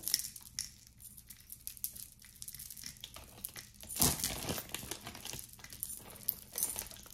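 Packaging crinkling and rustling while jewelry is handled and unwrapped: a run of small crackles, with a louder rustle about four seconds in.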